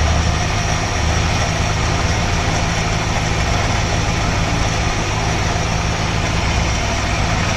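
1978 Dodge Ramcharger engine idling steadily on the choke's fast idle, running smoothly on its freshly rebuilt Carter two-barrel carburetor.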